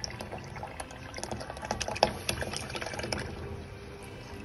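Coconut milk pouring into a pot of boiling pandan agar mixture: liquid splashing amid a dense crackle of popping bubbles, with one sharp pop about two seconds in, thinning out near the end.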